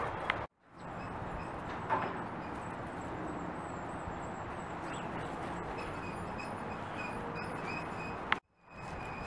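Strong wind rushing steadily over the microphone, with two brief dropouts to silence.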